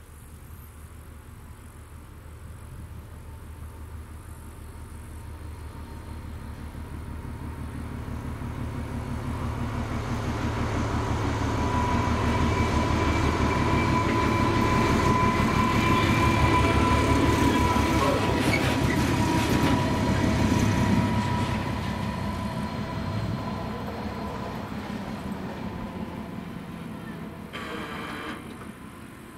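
Freight train passing a level crossing. Its rumble builds over about fifteen seconds, is loudest in the middle, then fades, with a steady high whine through the loudest part.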